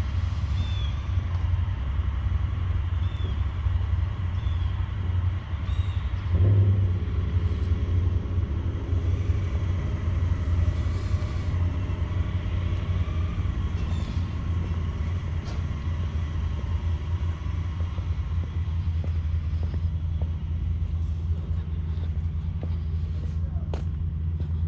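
A motor vehicle's engine running with a steady low rumble, briefly revving up about six and a half seconds in.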